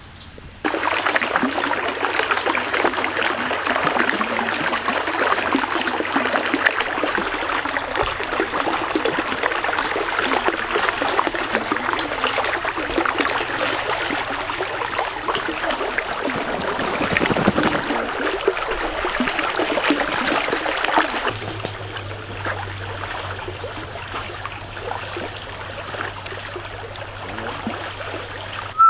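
Water of a shallow stream running and trickling steadily, a dense rushing sound. It turns a little quieter about 21 seconds in.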